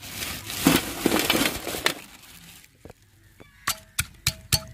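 A stone pestle pounding in a stone mortar, sharp clacking strikes about three a second with a brief ring after each, starting near the end. Before it, a loud, uneven noisy rush for the first two seconds or so.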